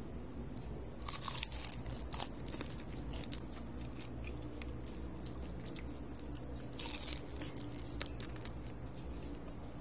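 Bites into crispy deep-fried chicken feet, crunching loudly in two bouts, one about a second in and one near seven seconds, with softer crunching and chewing between.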